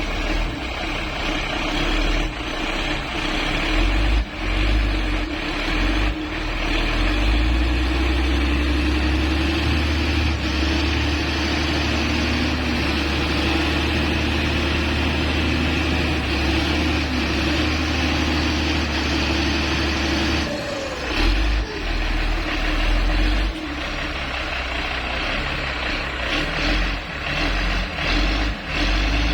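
Motor grader's diesel engine running under load, a steady drone that grows heavier about seven seconds in and eases about twenty seconds in, with a few clunks along the way as the machine works to free itself from soft ground.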